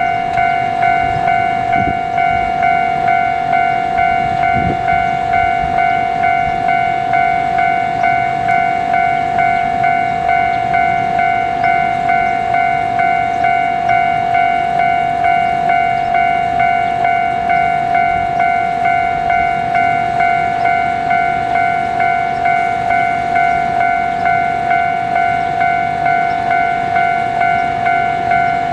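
Japanese railway level-crossing warning bell ringing continuously: a steady electronic chime repeating evenly a little over once a second.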